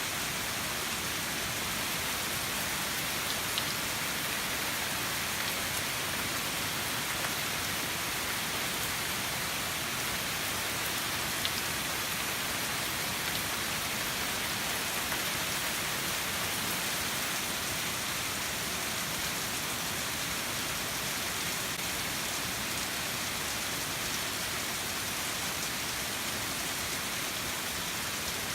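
Heavy rain pouring steadily, with a few single drops standing out now and then.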